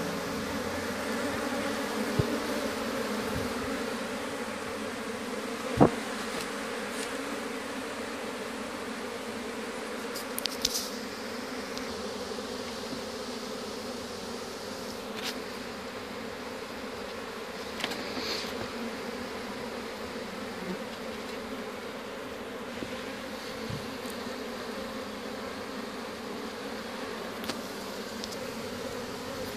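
Honeybee colony buzzing at the hive entrance: the steady hum of many worker bees and drones flying in and out on a spring foraging day. A few light ticks now and then, the sharpest about six seconds in.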